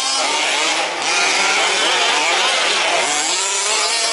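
Several 1/5-scale petrol RC trucks' small two-stroke engines racing, overlapping and rising and falling in pitch as they rev up and ease off around the track.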